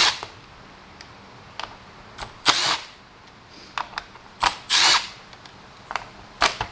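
Cordless power driver spinning out Torx screws (T25 and T15) from a car's centre-console trim panel, in several short bursts about two seconds apart.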